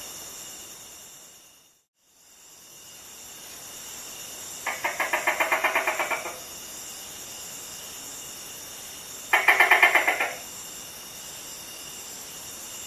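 A gecko calling in two bursts of rapid chattering clicks, about ten a second, each lasting a second or so, about five and nine seconds in. The calls sit over a steady high-pitched background hiss, which fades to silence briefly near the start.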